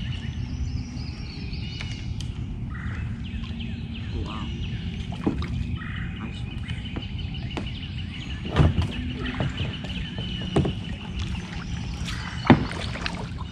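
Outdoor ambience from a kayak on flooded backwater: a steady low wind rumble on the microphone, a few sharp knocks against the kayak in the second half, and birds calling faintly.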